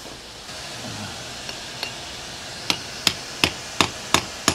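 Blacksmith's hand hammer striking a piece of knife steel on an anvil. Two light taps come first, then ringing blows at an even beat of about three a second from about halfway in. The smith is evening out a U-bent steel blank so that both sides match.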